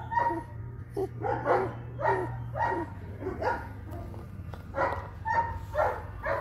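Long-coated German shepherd puppy giving short high yips and barks, about two a second, with a short pause near the middle.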